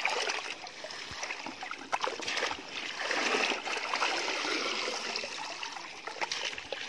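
Shallow water splashing and trickling as a plastic mesh basket is swept through weedy water and lifted out, water draining through the mesh, with scattered small knocks and rustles.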